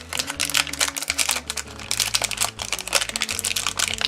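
Rapid, irregular crinkling and clicking of plastic packaging being handled and opened.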